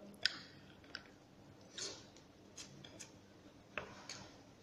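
Faint, irregular clicks and soft smacks of a person eating with her hands, about one or two clicks a second, from chewing and fingers picking food off a plate.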